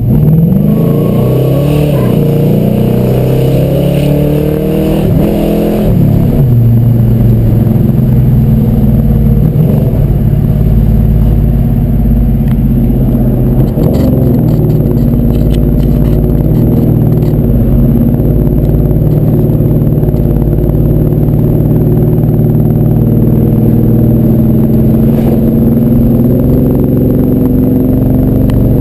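V8 car engine and road noise heard from on the car while driving: the engine pitch rises and falls over the first few seconds, then holds steady at cruising speed.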